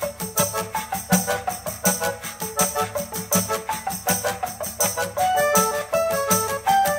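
Guitar music with quick plucked melody notes over a steady, bright percussion beat.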